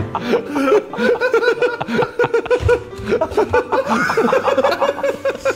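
People laughing hard: a long run of rapid, high-pitched laughs, about five or six a second.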